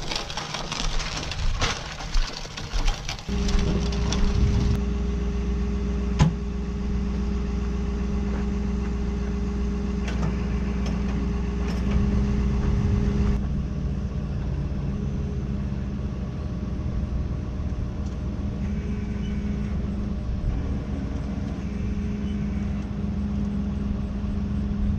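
A few seconds of scattered clicks and knocks, then a vehicle engine idling steadily from about three seconds in, with one sharp knock about six seconds in.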